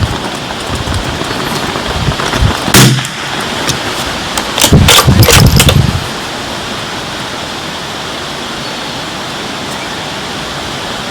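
Strong wind buffeting the microphone, with a single shot from a Bergara BMR bolt-action .22 LR rifle about three seconds in. A couple of seconds later comes a quick run of sharp clicks during a heavier gust, and the wind settles to a steadier rush after that.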